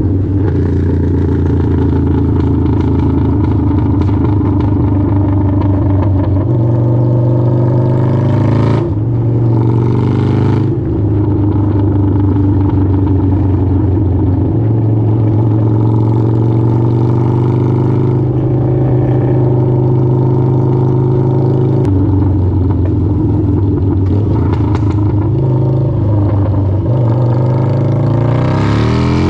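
Harley-Davidson V-Rod's V-twin engine idling steadily, with two sharp pops about nine and ten and a half seconds in, and the engine starting to rev up near the end.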